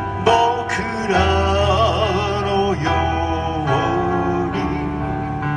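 Music from a live concert: a singing voice over held instrumental chords and steady bass notes.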